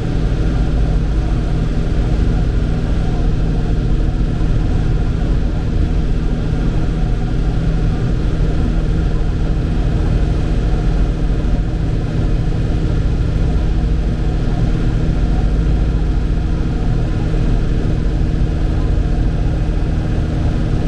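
Tractor engine running at a steady speed, a constant drone with no change in pitch.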